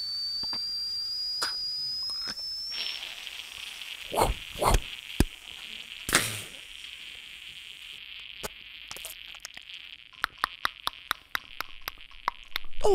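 Beatboxer's mouth-made kitchen sound effects: a thin whistle rising slightly in pitch for the first three seconds, like a kettle coming to the boil, then a steady hiss imitating a frying pan sizzling, broken by a few thumps and, in the second half, a fast run of clicks and pops.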